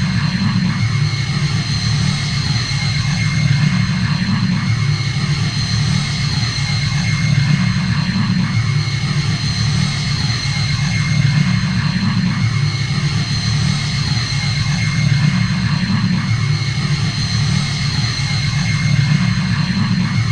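Sound effect of a Star Wars Republic Consular-class frigate's engines idling: a steady deep hum that swells gently about every four seconds, with two faint steady high whines and a hiss over it.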